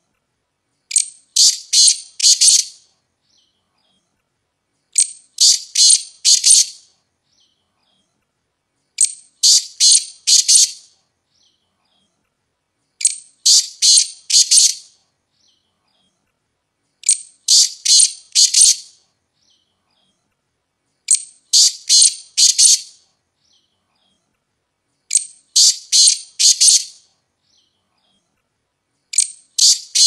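Black francolin (black partridge) calling: a short lead-in note followed by a quick run of three or four grating notes, the phrase repeated about every four seconds, eight times.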